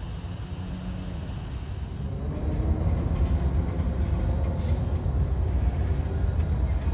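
Freight train rolling on the rails: a steady low rumble of railcars that grows louder about two seconds in.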